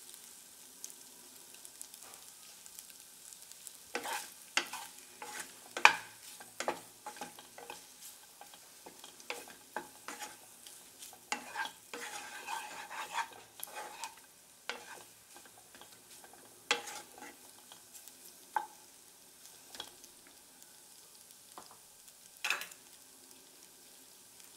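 Wooden spatula stirring and tossing macaroni in a non-stick kadai, with irregular scrapes and knocks against the pan. The stirring comes in bouts, busiest about four seconds in and again around twelve seconds, with a few single knocks later.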